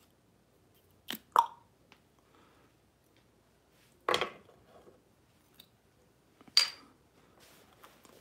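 Metal crown cap levered off a glass bottle with a lighter: a click, then a sharp pop with a short metallic ring about a second and a half in. Two more sharp knocks follow, about four seconds in and near the end, the second with a high ring.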